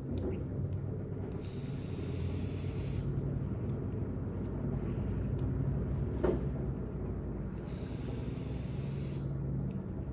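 Steady low hum and rumble of background noise, with two short spells of hiss, about a second and a half in and again near the end.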